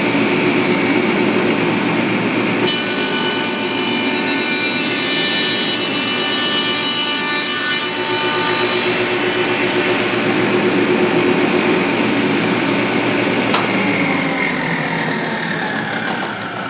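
Table saw spinning an 8-inch, 42-tooth stacked dado blade set, running steadily. For several seconds near the start it turns harsher as the stack cuts a dado across a 2x4. Near the end the motor is switched off and the tone falls as the heavy blade stack winds down.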